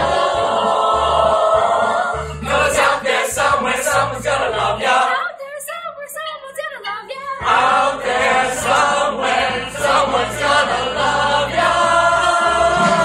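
A group of voices singing a musical-theatre chorus number in unison and harmony over instrumental accompaniment with a pulsing bass. It opens on a long held note, thins to a quieter passage about five seconds in, then comes back at full voice and ends on another held chord.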